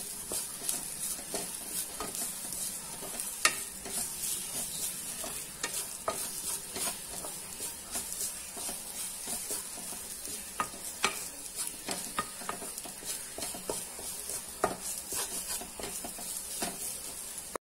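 Wooden spatula stirring grated coconut frying in ghee in a non-stick pan: irregular scrapes and taps of the spatula against the pan over a steady, soft sizzle. The coconut is being roasted toward brown.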